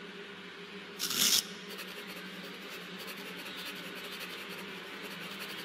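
Pen scratching on paper: one short, sharp scratchy stroke about a second in, over a low steady hum.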